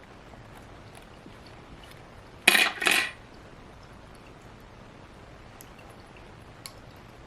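Small metal repair tools working at a phone's cracked camera lens glass: faint scattered ticks, and two short, loud scraping noises about half a second apart.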